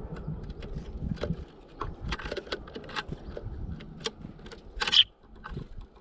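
Irregular taps, clicks and scrapes of a Eurasian tree sparrow pecking sunflower seeds and shifting on the wooden feeder floor, with one louder, brief rustle near the five-second mark. A low rumble underneath stops about a second and a half in.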